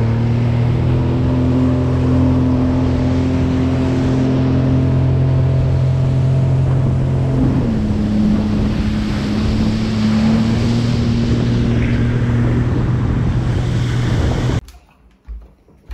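Sea-Doo Fish Pro jet ski running at speed, a steady engine hum under the hiss of spray and wind. The engine note dips slightly about halfway through. The sound cuts off shortly before the end.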